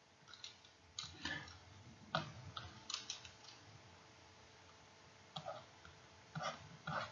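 Stylus pen tapping and scratching on a tablet while handwriting, making a scatter of faint, irregular clicks.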